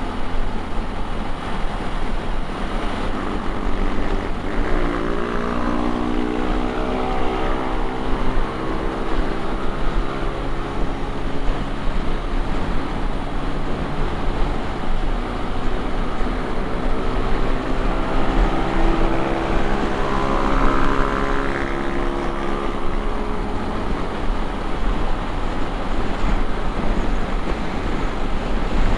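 Honda XRE 300's single-cylinder engine running steadily under way, its pitch shifting twice, about five seconds in and again past the twenty-second mark. The rider puts its extra mechanical noise down to valve clearance set a little looser than spec, which sounds like valves tapping.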